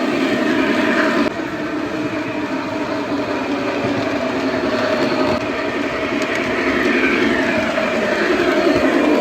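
Lionel Vision Line Commodore Vanderbilt O gauge model locomotive and train running on the track: a steady rolling rumble of wheels and motor. The level drops slightly about a second in and again about halfway through.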